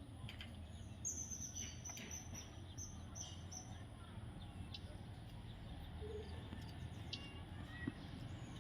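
Faint high-pitched parrot chirps: a quick string of short calls in the first few seconds, then a couple more later, over a low steady hum.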